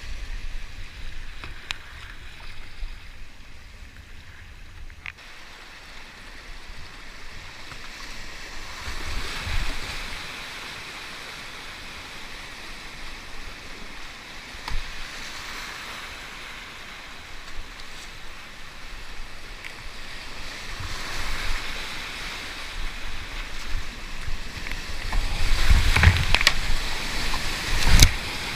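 Rushing whitewater of a river rapid heard from a kayak, with paddle splashes and wind buffeting the microphone. The water noise swells about a third of the way in and is loudest near the end.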